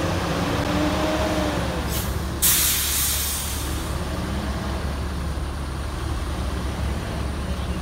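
Bus diesel engine running with a low steady rumble, and air brakes hissing: a short hiss about two seconds in, then a loud sharp hiss half a second later that fades away over about a second.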